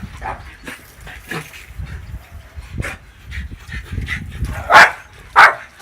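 A dog barking, with two loud barks close together near the end, over a low rumble of wind on the microphone.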